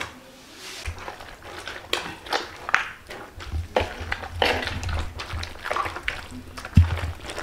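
A hand churning cream in a large aluminium bowl, in irregular wet squishing strokes, with a heavier thump a little before the end. The cream is breaking into butter and buttermilk.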